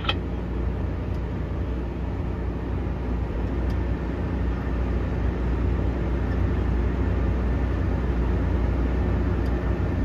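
Tractor engine running steadily under load, heard from inside the cab as an even low drone.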